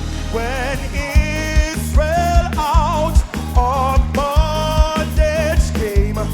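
Live gospel band playing a hymn, with a lead melody that wavers with vibrato over a steady bass line and regular drum beats.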